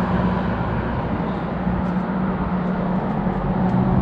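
Steady road traffic noise from cars crossing a highway bridge close by: an even drone of tyres and engines.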